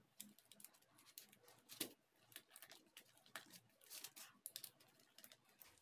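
Faint, irregular light clicks and scratches of bare copper wire being handled and twisted at the terminals of a plastic switch board, one a little louder about two seconds in.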